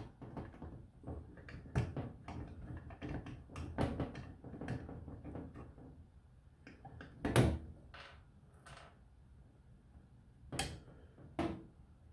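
Allen key turning stainless cap screws that hold a one-shot lube pump against a sheet-steel cabinet: a run of small metallic clicks and scrapes, with a sharp knock about seven seconds in and two more near the end.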